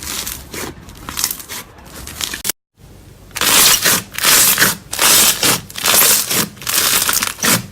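Slime being squeezed and pressed by hand, making crackling, crunchy sounds. After a short break about two and a half seconds in, there is a run of about six loud crackly squeezes, roughly one every two-thirds of a second.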